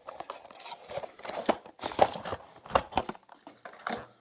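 Plastic packaging crinkling and clicking as a small diecast model car and its accessories are handled out of the box: a dense run of irregular small clicks and rustles.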